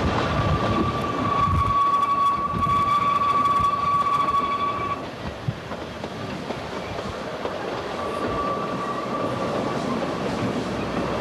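Ikawa Line train running, heard from aboard, with a long high steady squeal of wheels on the rails for about five seconds. The squeal returns more faintly near the end.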